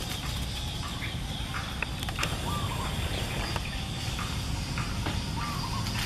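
Short animal calls repeat about every three seconds over a steady outdoor background, with a few light clicks and rustles in between.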